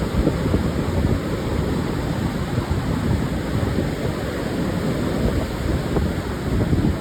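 Pacific surf breaking and washing onto a sandy beach in a steady low wash, with wind buffeting the microphone.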